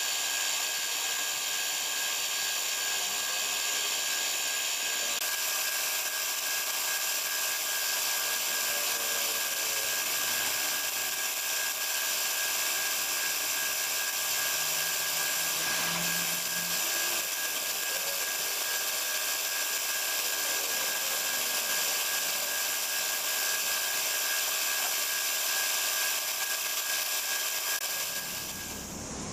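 Gravity-feed air spray gun hissing steadily as it sprays paint, over the steady hum of a running motor.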